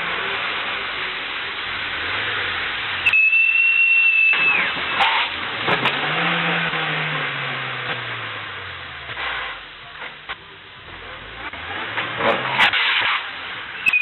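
A car's engine revving and then falling away in pitch over a steady hiss, with a brief high squeal about three seconds in and several sharp knocks near the end.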